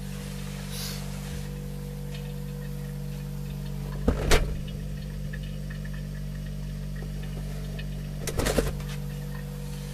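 A steady low hum with two short knocks or rustles, about four seconds in and again about eight and a half seconds in.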